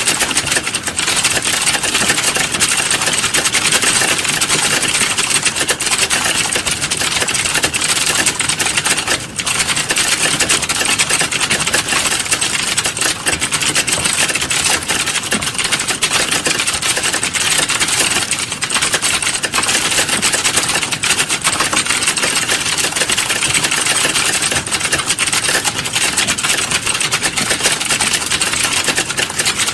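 Rapid, continuous typing on a computer keyboard: a dense, unbroken clatter of keystrokes, with a brief let-up about nine seconds in.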